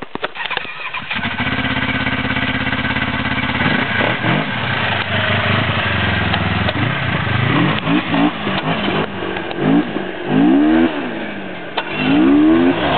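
A snowmobile engine starts about a second in and runs steadily, then is revved in a series of short throttle blips that rise and fall in pitch, the two strongest near the end.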